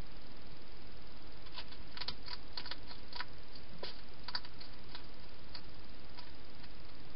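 Wild hedgehog crunching food at a bowl: a quick run of crisp clicks for a few seconds, then a few scattered ones, over steady hiss.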